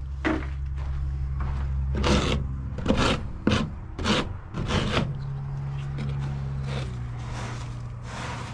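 Plastic cat litter scoop scraping through Sweet PDZ granules on a wooden poop board under a chicken roost. There is a burst of about six short scrapes between two and five seconds in, with single strokes near the start and the end, over a steady low hum.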